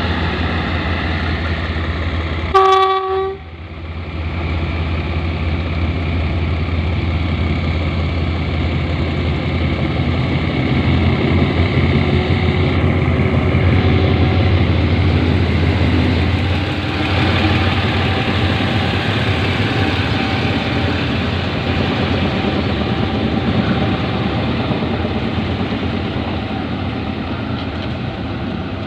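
GE GEK diesel-electric locomotive no. 4048 running, a steady low engine drone that grows louder in the middle. A single short train horn toot sounds about two and a half seconds in.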